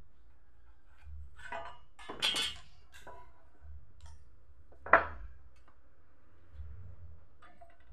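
Reclaimed wooden boards and a steel carpenter's square being handled: a scraping shuffle of wood about two seconds in, then a single sharp knock about five seconds in, the loudest sound, with a few fainter taps between.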